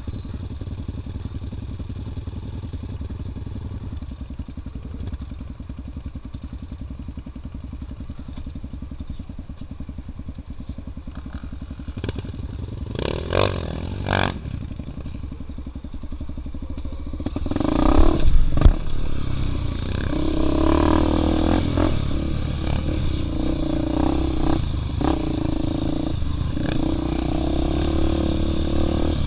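Honda Tornado trail bike's big-bored 293 cc single-cylinder four-stroke engine heard from the rider's seat, running steadily at low revs at first, with the bike clattering over rocks. About two-thirds of the way in the throttle opens and the engine gets clearly louder, revs rising and falling as the bike is ridden along the trail.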